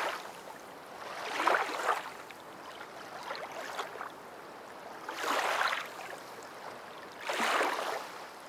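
Waves washing in, a swell of noise rising and falling every couple of seconds.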